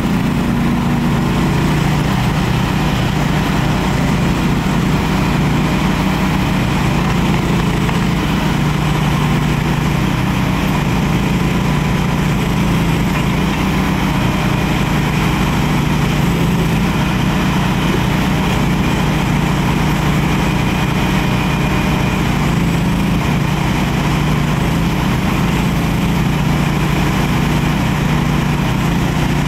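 Landhero LDH-HT16B mini excavator's engine running steadily while its boom, arm and bucket are worked.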